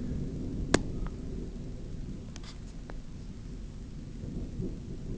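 Low rumble of distant thunder during a storm, heard through a cell phone's microphone, with a few sharp clicks. The loudest click comes about three quarters of a second in.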